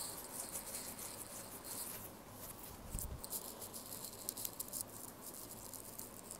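Faint, irregular small clicks and rustling, with a soft low thump about three seconds in.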